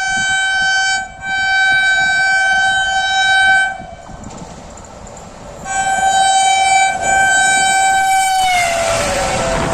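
WAP-7 electric locomotive's air horn sounding in three long blasts, the last one dropping in pitch as the locomotive passes close by. Then the loud rush of the train passing.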